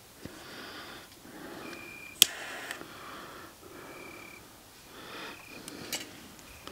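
Close, audible breathing through the nose, a breath about every second and a half, several with a faint thin whistle, and one sharp click about two seconds in.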